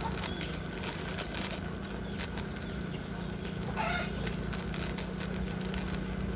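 Small motorcycle engine running steadily at cruising speed, with a rapid clicking rattle over it. A short wavering higher-pitched sound comes a little before four seconds in.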